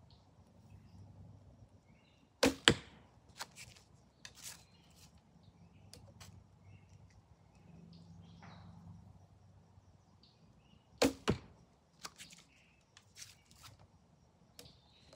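Two shots from a traditional longbow. Each is a sharp snap of the string on release followed a fraction of a second later by the thud of the arrow hitting a target about 13 yards off, the first pair about two and a half seconds in and the second about eleven seconds in.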